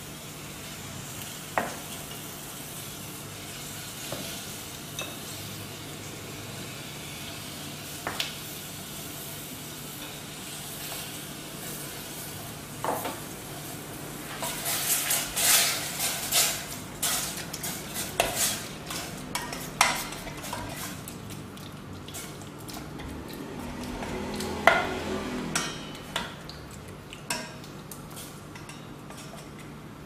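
Sliced grilled pork sizzling in a stainless steel pot over a gas burner. There are a few separate knocks in the first half, then from about the middle until near the end a spatula stirs and scrapes the meat around the pot in a dense run of clicks and scrapes.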